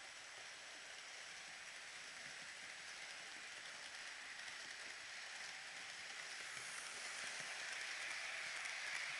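Roco model trains, the ÖBB 1216 and 1142 electric locomotives with their wagons, rolling along the track: a steady rushing rattle that grows louder as they come near.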